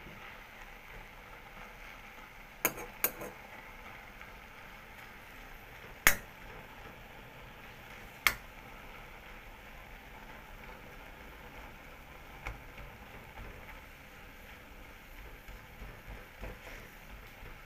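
Metal spoon stirring and scraping bokful (sesbania flowers) in a metal kadai, with a few sharp clinks against the pan, the loudest about six and eight seconds in, over a soft steady sizzle of the vegetables frying.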